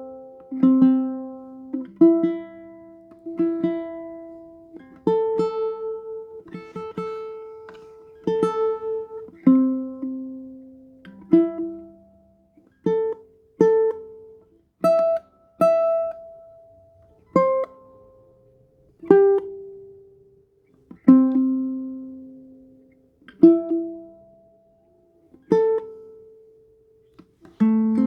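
Tenor ukulele played one note at a time in a slow melody, each plucked note left to ring and die away before the next.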